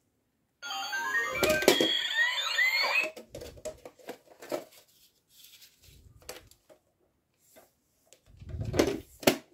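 Toy fingerprint-lock bank bag playing a short electronic jingle with rising, sliding beeps after its fingerprint pad is pressed, signalling that it has unlocked. Plastic clicks and knocks follow as its front door is opened and handled, with a louder knock near the end.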